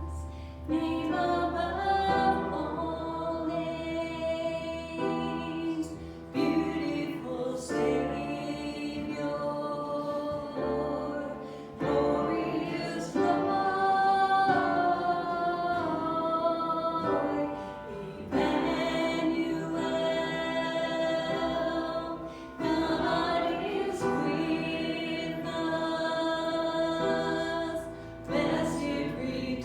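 A congregation or choir singing a slow hymn in sustained phrases, with short breaths between lines and instrumental accompaniment underneath.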